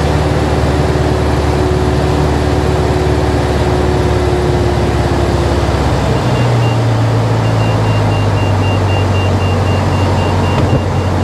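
Robin DR400 light aircraft's engine idling with the propeller turning slowly, heard from inside the cockpit while the plane rolls out over a grass runway after landing, with a steady rumble of the wheels on the grass. About six seconds in, the engine note changes.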